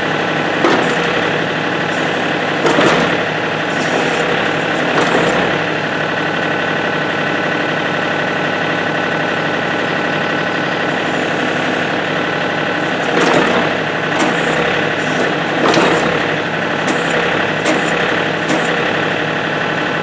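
John Deere compact tractor's diesel engine running steadily while the backhoe's hydraulic levers are worked, with several short swells of louder sound as the backhoe moves.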